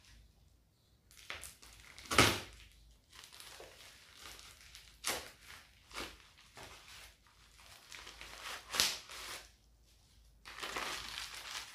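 Plastic courier mailer being torn open and crinkled by hand: irregular rustling with sharp rips, the loudest about two seconds in and again near nine seconds, then a longer stretch of plastic rustling near the end as the bubble-wrapped package is drawn out.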